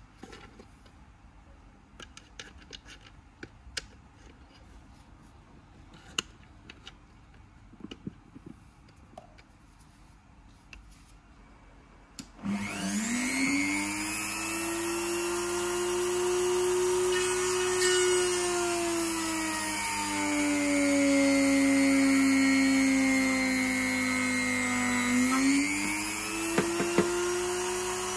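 Light wooden clicks and knocks for the first twelve seconds, then an Ozito RTR-4100 rotary tool switches on and spins up to a steady high whine. About halfway through its pitch drops as the drill bit bores into a wooden block, and near the end it climbs back up as the bit comes free.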